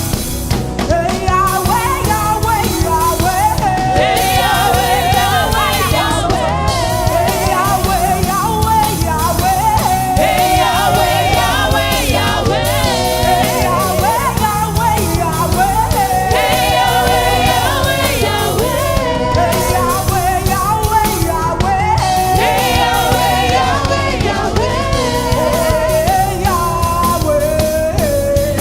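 Gospel worship song: a singer with wavering vibrato over steady instrumental accompaniment, with backing choir voices.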